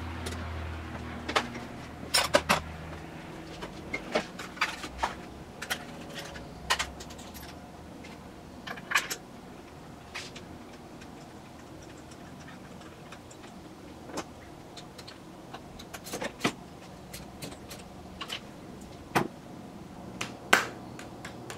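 Irregular metallic clicks and clinks of hand tools and parts being handled in the engine bay during a spark plug change, with a few sharper knocks.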